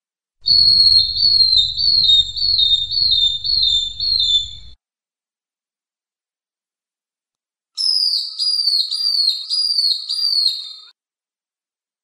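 Long-tailed broadbill calling: two runs of high, clear whistled notes, each note slurring slightly downward, about two a second. The first run has about eight notes, and the second, after a pause of a few seconds, about six.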